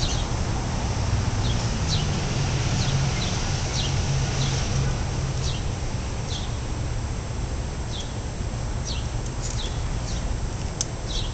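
Small birds chirping, short falling chirps about once a second, over a steady low traffic rumble.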